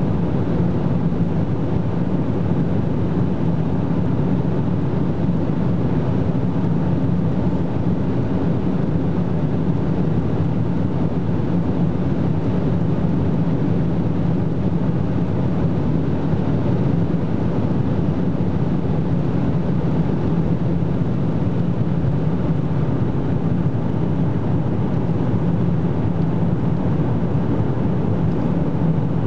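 Cabin noise of an Opel Insignia OPC at very high Autobahn speed: a steady rush of wind and tyres, with the engine's drone heard through the body.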